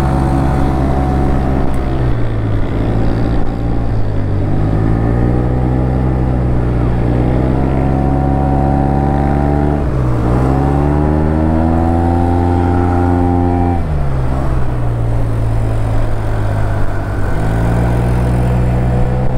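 Yamaha TMAX maxi-scooter engine running under way, heard from the rider's seat. Its pitch climbs as the throttle opens, falls sharply about ten seconds in and again about fourteen seconds in, then rises again near the end.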